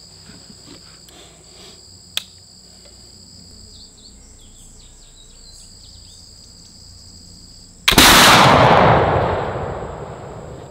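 A .62-caliber flintlock smoothbore fires once, about eight seconds in, on a 95-grain charge of Goex 2F black powder behind a patched round ball: one loud shot whose boom dies away over two to three seconds. A single sharp click comes about two seconds in.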